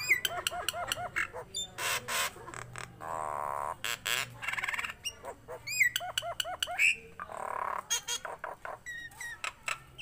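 Caged common myna (jalak nias) calling a rapid, varied medley: quick series of rising-and-falling whistled notes, sharp clicks, harsh rasping squawks and a buzzy churr.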